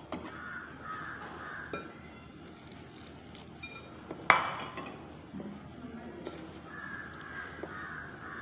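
Crows cawing in the background, a few calls near the start and more near the end, with one sharp clink of kitchenware about four seconds in.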